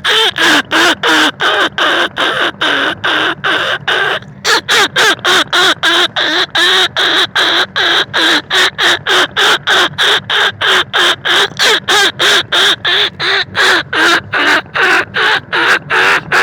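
Rat-lure call for field rats and bandicoot rats: short, harsh squealing calls repeated rapidly, about three a second, with a brief break about four seconds in.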